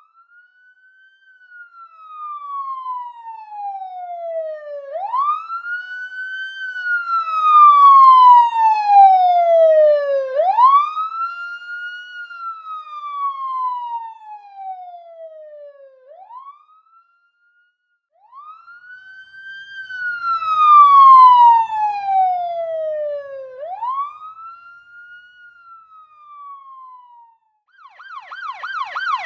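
Police car siren on a slow wail passing by twice: the tone climbs quickly and slides slowly back down, once every five or six seconds, swelling to a peak and then fading away. A short silence about halfway through separates the two passes.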